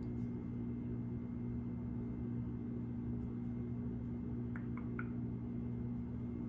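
A steady low hum with no change in level, and a few faint short blips about three-quarters of the way through.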